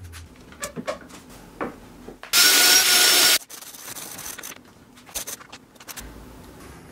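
Hand plane shaving a wooden board: one loud cutting stroke of about a second near the middle, amid quieter scrapes and knocks of wood.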